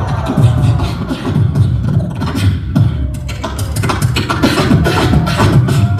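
Live beatboxing through a microphone and PA: rapid vocal kick and snare hits over a continuous low vocal bass. A wavering pitched vocal line comes in at the start and again about three seconds in.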